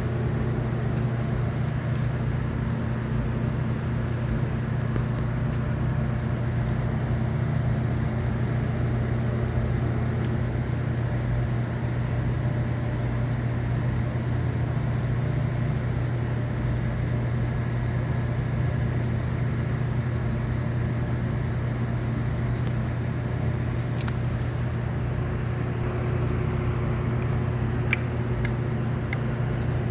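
Lexus IS250's V6 engine running steadily at idle, with one cylinder misfiring from a burnt valve.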